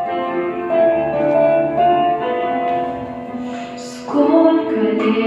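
Instrumental introduction of a slow song: a piano-like keyboard melody over held chords, with a fuller, louder arrangement coming in about four seconds in.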